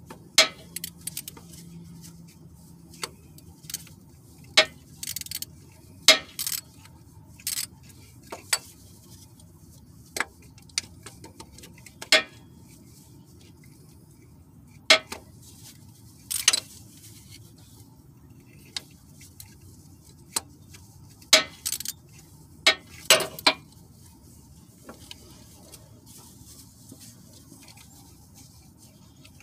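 Hand tools and metal parts clinking and rattling in irregular, scattered knocks, a few grouped into short rattles: wrench and socket work on the engine.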